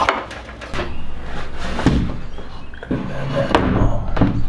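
Wooden knocks and clacks from a red cedar door latch and cabinet door being worked by hand several times, over a low steady hum.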